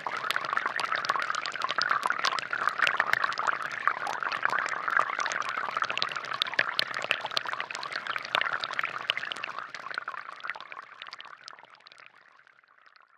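Water from a small-pump DIY fountain trickling and splashing steadily into its plastic basin, with many small drip splashes, fading out over the last few seconds.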